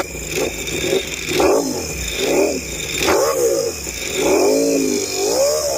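2024 Ducati Panigale V4R's V4 engine through an FM Projects titanium racing exhaust, revved in a string of about six quick throttle blips, each pitch rising and falling back, the later blips longer.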